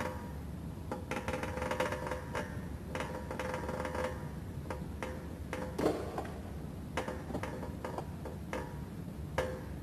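Background music: held synthesizer notes over a light, clicking percussion beat.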